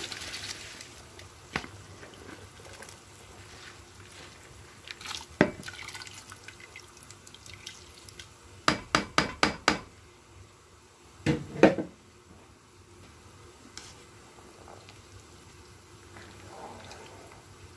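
Washed rice poured from a bowl into boiling mutton stock in a steel pot, splashing at first. About nine seconds in comes a quick run of about six sharp knocks as the bowl is tapped to shake out the last grains, then two louder knocks a little over a second later.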